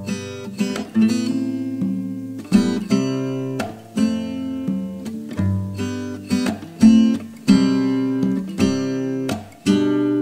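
Acoustic guitar strumming chords in an instrumental break of a song, each strum ringing out before the next.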